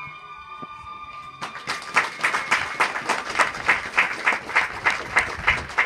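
Music of held, steady tones stops about a second and a half in and a group breaks into applause, with one pair of hands close by clapping steadily about three times a second over the rest.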